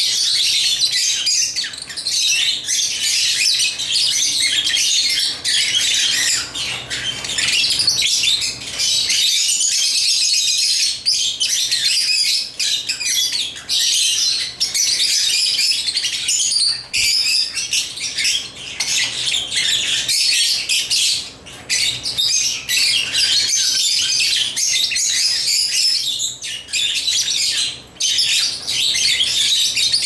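Several pet African lovebirds chirping without pause, a dense high-pitched chatter of overlapping calls.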